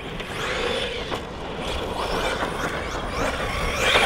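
An ARRMA Kraton 6S RC basher running on dirt. Its brushless motor whines up and down with the throttle over tyre and ground noise, and it revs up sharply near the end.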